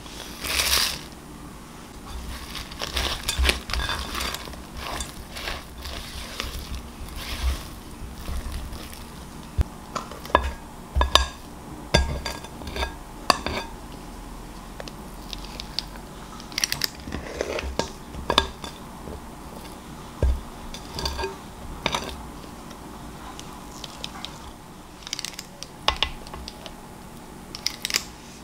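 A silicone spatula scrapes and folds stiff cookie dough against a glass bowl. Then a metal spring-release cookie scoop clicks and knocks as portions of dough are scooped out and dropped onto a lined baking tray, giving a run of sharp separate clicks and clinks.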